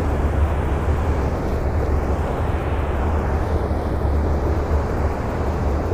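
Steady rushing roar of river water spilling through a dam's gates, with a low rumble of wind on the microphone.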